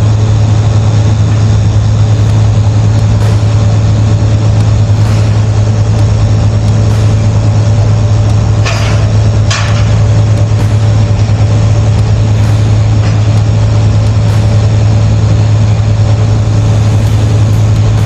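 Crane's diesel engine running steadily with a deep, even drone. Two short hissing bursts come a little under a second apart, about halfway through.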